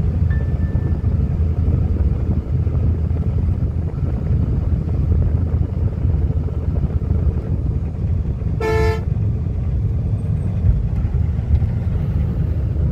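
Steady low rumble of engine and road noise inside a moving sleeper coach bus. A vehicle horn sounds once, briefly, about nine seconds in.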